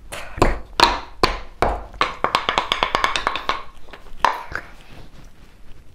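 Wooden pestle pounding anise seeds in a wooden mortar: sharp wooden knocks about twice a second, then a quicker run of lighter taps in the middle, and a few last knocks.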